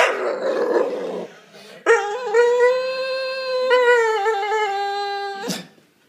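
Staffordshire bull terrier vocalising for attention. First comes a rough growling grumble for about a second, then a long pitched howl of three to four seconds that wavers and drops a little in pitch near its end, cut off by a short sharp sound.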